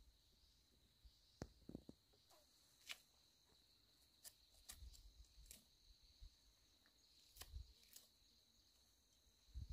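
Faint scattered snaps, crackles and rustles of dry grass and weeds being pulled and handled at ground level, over a steady faint high-pitched tone.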